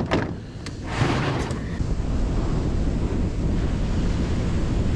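Wind buffeting the microphone over breaking ocean surf, a steady rushing noise. A few sharp clicks or knocks come in the first second and a half.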